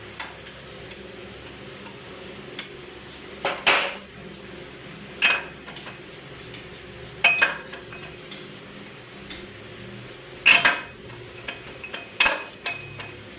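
Metal tools and parts clanking against each other: a string of sharp metallic knocks with a ringing edge, irregular and a second or two apart, over a steady low hum.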